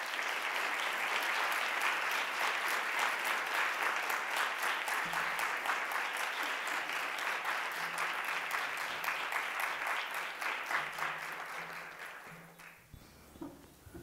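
A large seated audience applauding, steady dense clapping that tapers off and dies away about twelve seconds in.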